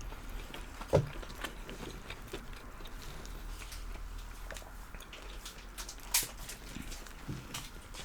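People chewing fried food, with scattered short crunchy clicks and mouth smacks, and a louder click or knock about a second in and another about six seconds in.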